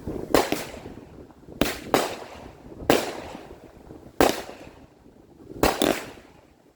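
Consumer fireworks going off: about seven sharp bangs in six seconds at uneven spacing, each trailing off briefly.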